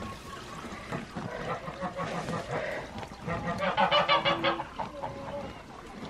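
Geese honking, with a quick run of loud honks a little past the middle.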